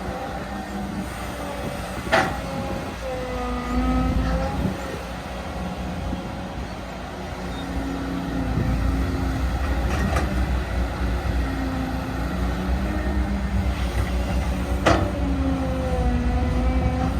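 Caterpillar 315D L hydraulic excavator working: diesel engine running under load with a hydraulic whine that rises and falls as the boom and bucket move. Two sharp clanks, about two seconds in and near the end, and the engine gets louder from about halfway through.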